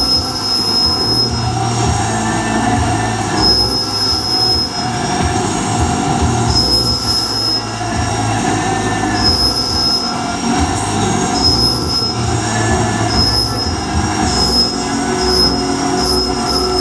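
Haas VF3 CNC vertical mill's spindle and cutter milling 1018 cold-rolled steel, a steady loud running noise. A high-pitched squeal comes in for about a second at a time, several times over, more often near the end.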